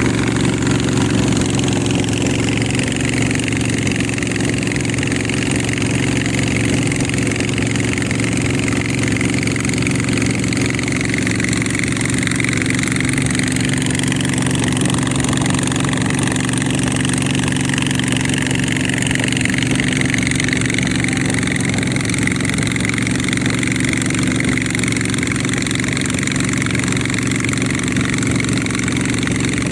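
Boat engine running steadily: an unbroken drone, with a constant rushing noise over it.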